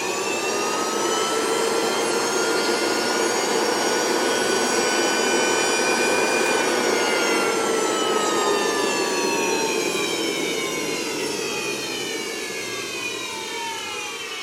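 Dumore tool post grinder spinning its grinding wheel free, with a high whine, in a test run with the wheel not yet trued. It spins up at the start and runs steadily, then about seven seconds in its pitch starts falling as it winds down.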